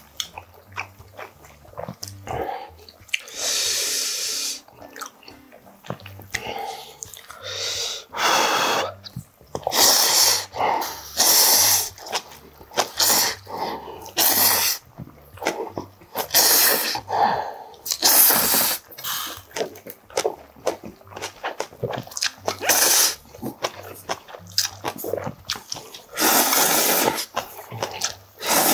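A person slurping ramen noodles, a series of loud, long slurps with short pauses between them for chewing.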